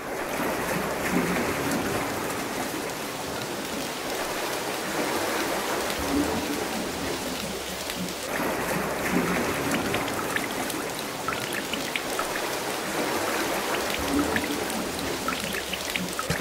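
Steady rain sound effect: a dense hiss of falling rain with scattered sharper drop clicks, layered with faint low synth tones as part of an electronic ambient music track.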